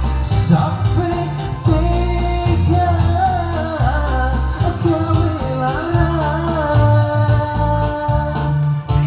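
A man singing a slow melody with long held, wavering notes over backing music with a steady beat and bass.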